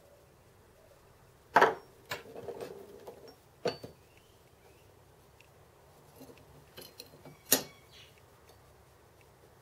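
Metal parts clinking and knocking as they are handled. There are a few separate sharp knocks, the loudest about one and a half seconds in with a short rattle after it, and another loud knock about three-quarters of the way through.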